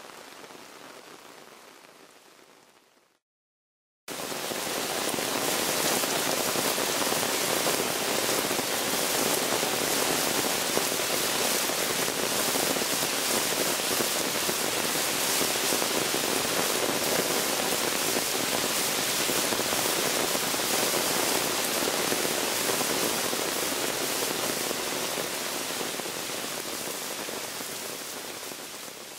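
Rainwater runoff rushing down a wooded slope: a steady hiss of flowing water. A quieter stretch fades out in the first three seconds, and after a second of silence a louder rush starts abruptly about four seconds in, easing off near the end.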